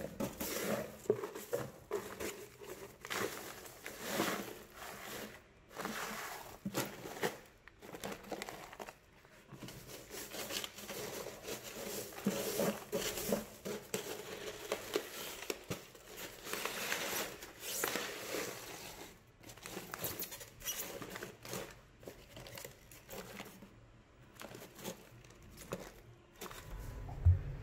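Crushed ice crunching and shifting as a hand digs through it, in irregular bursts, with the plastic bags around the fish crinkling. A single sharp knock near the end.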